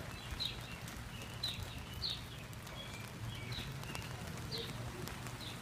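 A songbird chirping over and over: short, high chirps that fall in pitch, roughly one a second, over a steady low hum and the hiss of rain.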